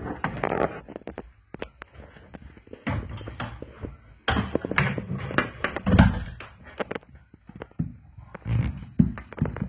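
Irregular knocks, taps and scraping rustles of handling work, with a heavy thump about six seconds in.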